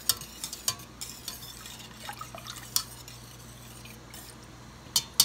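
Whisk stirring a cream sauce in a stainless steel saucepan: soft liquid swishing with scattered clicks of the whisk against the pan, and a couple of sharper clicks near the end.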